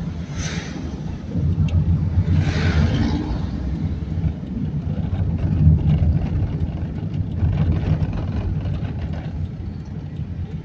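A car driving in town traffic, heard from inside: a steady low engine and road rumble, with two brief rushing swells in the first three seconds.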